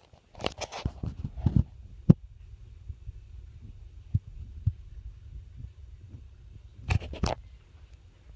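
Hampton Bay Bay Island ceiling fan running with a steady low rumble, overlaid by a cluster of clicks and knocks in the first second and a half, one sharp click about two seconds in, and two loud clicks near the end.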